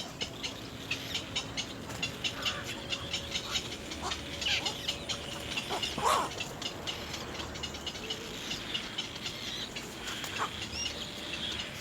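Birds calling at a nest: a rapid series of short clicking chirps, about four a second, with a few louder, harsher calls scattered through.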